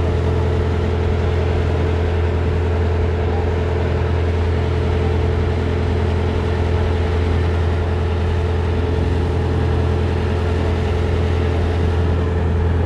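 Ferry boat's engine running with a steady low drone, heard from on board.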